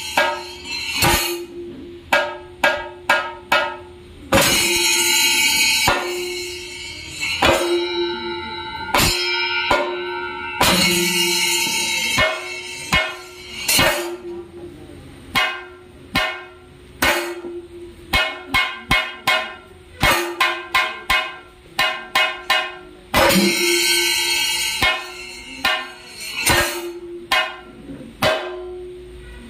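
Thayambaka drumming: chenda drums struck with sticks in quick runs of sharp strokes, alternating with stretches of ringing ilathalam hand cymbals.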